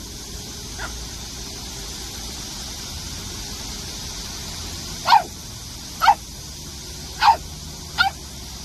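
Ash-grey Pungsan puppy giving short, high puppy barks in play: one faint yip about a second in, then four sharp barks about a second apart in the second half. A steady high hiss lies underneath.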